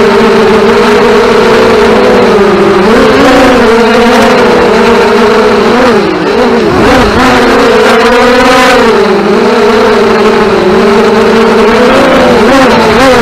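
FPV racing quadcopter's electric motors and propellers whining at full race pace. The pitch wavers with the throttle, drops and swoops back up about six to seven seconds in, then steadies again.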